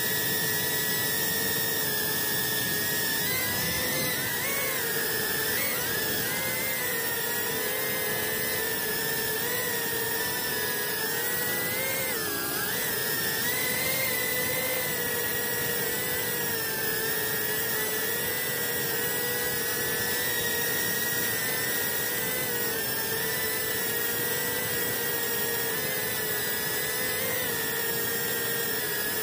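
Whine of a GEPRC CinePro 3-inch 4S FPV drone's brushless motors and propellers in flight, heard through its onboard camera. The pitch holds steady with small wavers as the throttle shifts, and dips briefly about twelve seconds in.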